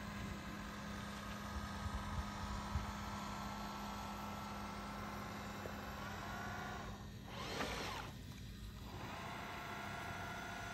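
Radio-controlled model fireboat running on the water: a steady electric hum and motor whine. About six seconds in, a pitched sound falls away, then a short hiss about a second later, and near the end another steady pitched sound.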